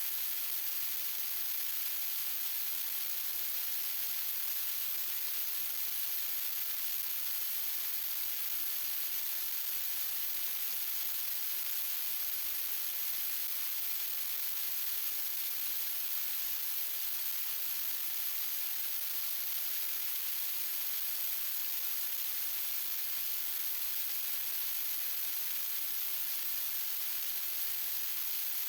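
Steady, even hiss, strongest in the highs, with no tones or knocks and no change throughout.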